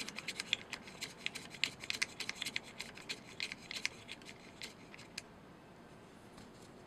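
Small threaded plastic knob being unscrewed by hand from the magazine lever of a Kalibrgun Cricket air rifle: a run of faint, quick clicks and scratches from the turning knob and fingertips on the metal plate, stopping about five seconds in.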